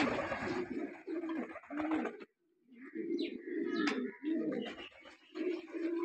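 A flock of domestic fancy pigeons cooing over and over, low arched calls following one another with a short pause about two seconds in. A brief rustling burst comes at the start, and a few high chirps sound about three to four seconds in.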